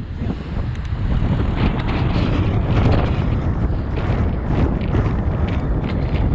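Strong gusting wind buffeting the microphone while cycling, a loud low rumble.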